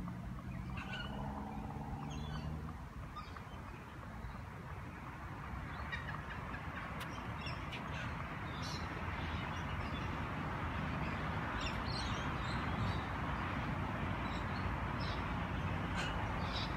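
Birds calling over a steady low rumble, with a longer pitched call early on, and scattered short sharp ticks through the second half.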